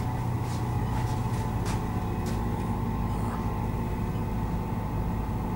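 Steady low mechanical hum of indoor background noise, with a handful of light clicks in the first couple of seconds.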